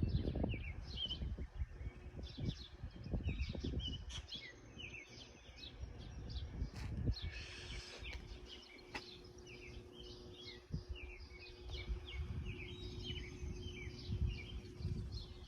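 Small birds chirping over and over, many short high chirps overlapping throughout, over a low rumbling background noise.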